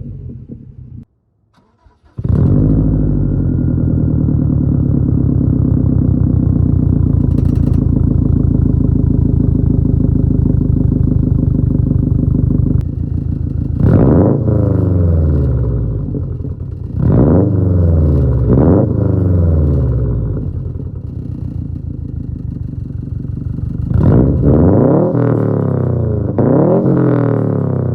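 Subaru WRX STI's turbocharged flat-four engine through a Tomei Expreme Ti titanium catback exhaust. It cuts out for about a second near the start, runs loud and steady for roughly ten seconds, then revs up and falls back several times in the second half.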